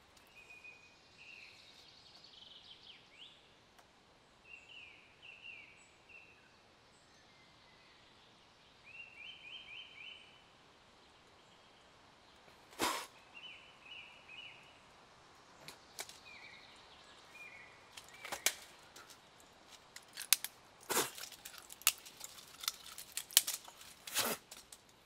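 Quiet woodland with a bird giving short trilled calls several times in the first half. From about halfway, sharp clicks and snaps come from something small being handled, and they come thick and fast in the last few seconds.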